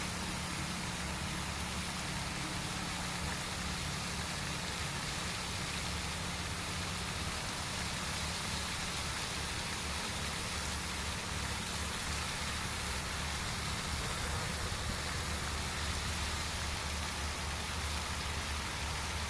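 Pond spray fountain splashing steadily, an even hiss with a low hum underneath.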